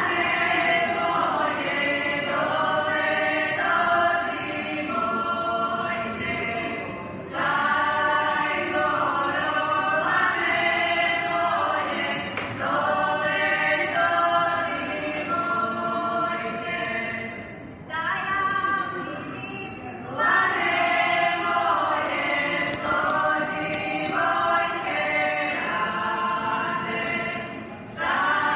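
Folk choir singing a song together in long phrases, with brief breaks about seven, eighteen and twenty-eight seconds in.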